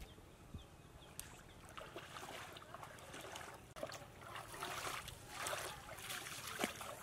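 Bare feet wading through shallow muddy water, sloshing and splashing in uneven steps that grow louder after about four seconds.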